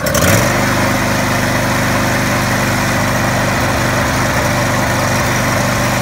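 Husqvarna riding lawn mower engine catching at the turn of the key, picking up within the first half second and then running steadily. It is starting and running on its newly installed wiring harness.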